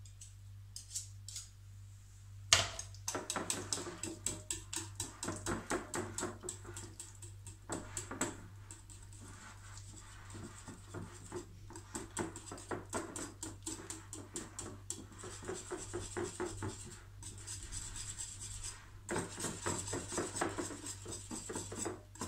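Wire whisk beating yogurt and quark in a glass bowl: rapid rhythmic strokes with the wires scraping and clinking against the glass. It starts about two and a half seconds in with a sharp clink, the loudest sound here, then runs on at about three strokes a second, getting quicker.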